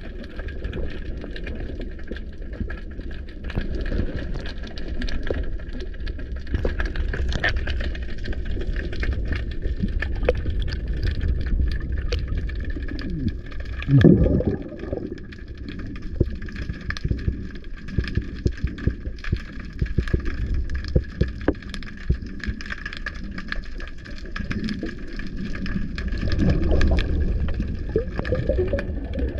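Underwater sound picked up by a diving camera: a steady low rush of water with many small clicks and crackles, a brief gurgle of bubbles about halfway through, and louder water movement near the end.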